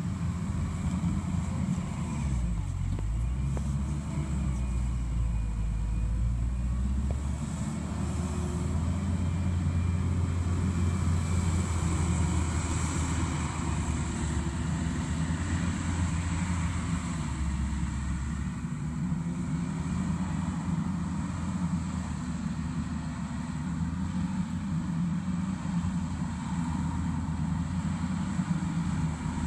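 Mustang MTL325 compact track loader's diesel engine running under load as the machine pushes dirt. Its low drone shifts in pitch a few times as the load changes.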